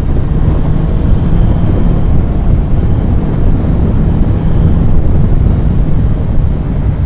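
Kawasaki Ninja ZX-9R's inline-four engine running at a steady pitch while the bike is ridden, heavily mixed with wind rushing over the microphone.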